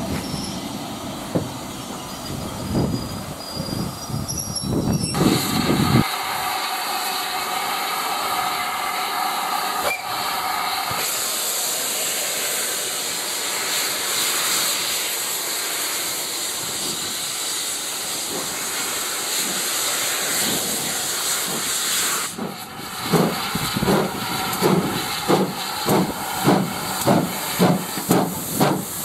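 Steam railway train: coaches rolling by, then a long steady hiss of steam venting from the locomotive, GWR Manor class 4-6-0 No. 7822 Foxcote Manor. In the last seven seconds the locomotive's exhaust beats start up, slow at first and coming faster as it gets under way.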